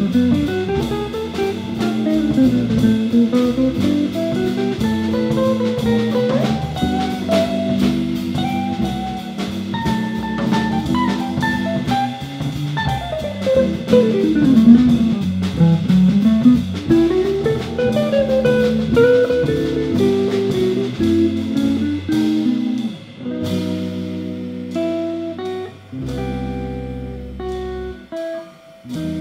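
Live organ trio playing a slow blues: electric guitar lines running up and down over held Hammond B3 organ chords, with drum kit keeping time. About three quarters of the way in, the drums thin out and the band moves into separate long held chords, as toward the close of the tune.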